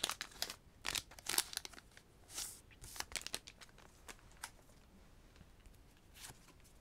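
A foil Pokémon card booster pack being torn open and crinkled in the hands, a run of short crackling rustles in the first half that thins out to faint handling of the cards.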